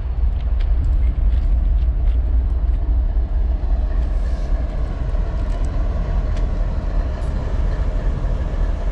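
GE ES44DC diesel-electric locomotive's V12 engine running with a steady, heavy low rumble as the locomotive rolls slowly past at track level, with scattered clicks from the wheels on the rails.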